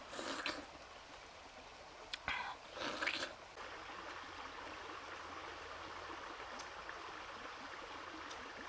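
A person biting into and slurping a juicy fresh pineapple, with three short wet bursts in the first three seconds. A small stream then runs steadily.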